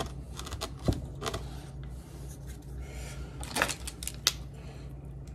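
A lemon juicer being worked on a halved lemon: a few scattered clicks and knocks, the sharpest about three and a half and four seconds in, over a low steady hum.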